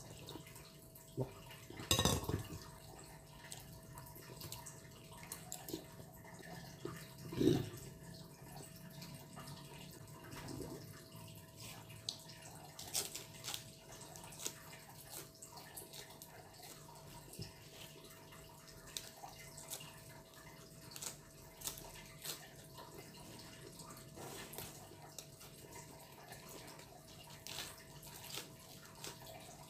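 Close-up eating sounds: a couple of wet slurps of soup from a spoon early on, then many small chewing clicks and smacks as raw lettuce leaves are eaten.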